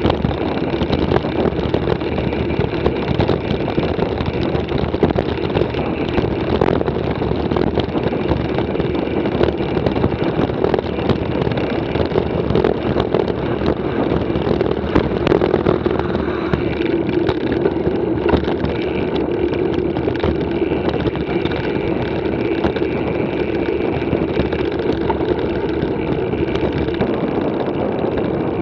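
Steady wind rush over an action camera's microphone, mixed with the rolling noise of mountain bike tyres on a paved lane while riding.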